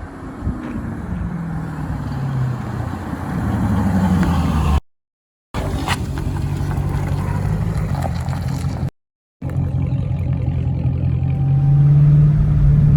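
2018 Dodge Challenger Scat Pack's 392 Hemi V8 running under way, with its note rising under acceleration about four seconds in. The sound cuts out to silence twice for under a second.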